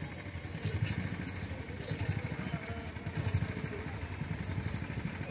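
Steady low rumble of motor engines in street traffic, with a rapid pulsing like a motorcycle engine running.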